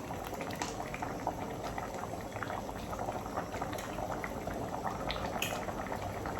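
Pot of bitter leaf soup boiling steadily, a continuous bubbling with many small pops.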